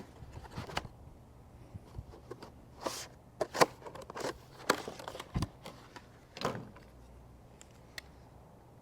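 Irregular clicks, taps and short rustles of windshield wiper blades being handled and worked on. The loudest is a sharp click about three and a half seconds in, and the handling stops about seven seconds in.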